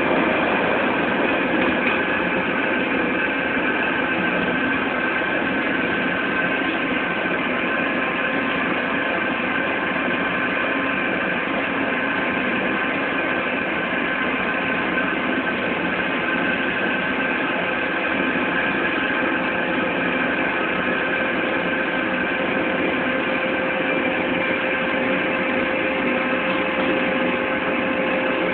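Shop machinery used to recondition a hydraulic cylinder rod, running steadily: a constant mechanical hum with several steady whining tones.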